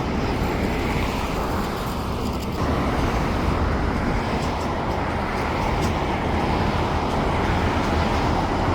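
Steady low engine rumble with road-traffic noise, growing a little louder from about three seconds in.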